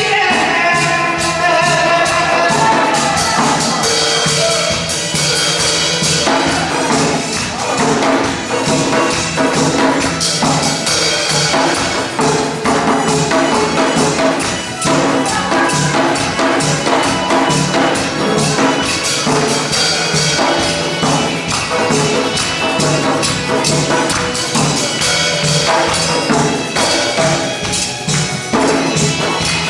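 Janggu, the Korean hourglass drum, played in a fast, driving rhythm with jingly cymbal hits over loud, upbeat dance music.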